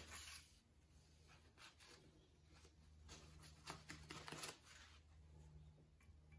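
Near silence: a paper towel rustling faintly as it wipes an engine oil dipstick, a few soft scrapes over a low steady hum.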